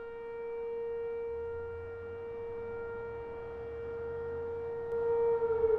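A single steady held tone with overtones, slowly swelling and easing in loudness. About five seconds in, a louder tone joins and begins sliding downward in pitch.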